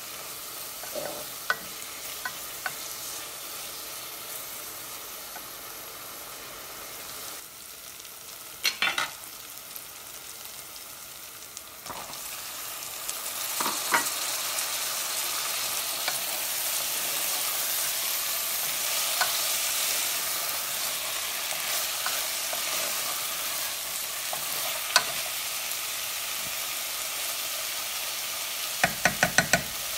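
Dried fish and spices sizzling in oil in a steel pot, stirred with a spatula that knocks against the pot now and then. The sizzle grows louder about halfway through, once diced raw potatoes have gone in, and a quick run of taps comes near the end.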